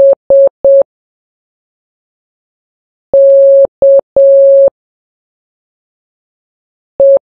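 Morse code practice tone, one steady mid-pitched beep keyed on and off: three short dots (the letter S), then after a long pause dash-dot-dash (the letter K), and near the end another dot and the start of the next.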